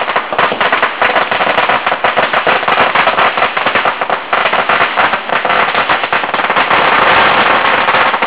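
A long string of firecrackers going off, a dense, unbroken rattle of rapid bangs.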